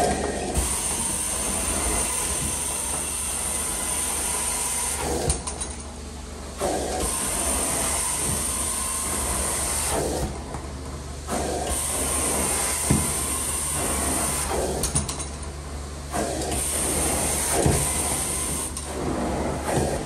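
Hydro-Force carpet extraction wand spraying and sucking hot water through the carpet in four long hissing strokes, with about a second of quieter suction between them. A steady low drone of the vacuum runs underneath.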